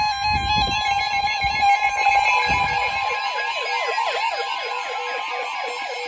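Weather radios sounding their alarms together for a tornado warning: steady high alert tones, joined about three seconds in by a fast, repeating siren-like warble. A few low thumps come in the first three seconds.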